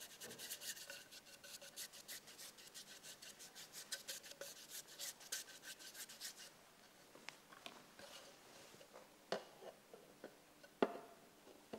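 Paintbrush scrubbing paint across a small board to prime it: a quick, faint run of scratchy brush strokes that thins out after about six seconds. Near the end come two light knocks as the board is set on a wooden easel.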